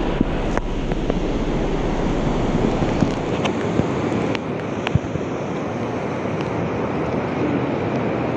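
Sea surf washing onto a beach with wind on the microphone: a steady rushing.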